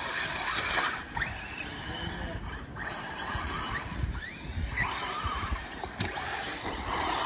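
Radio-controlled car driving on a dirt track: its motor whines in short rising revs over a rough noise of tyres on dirt.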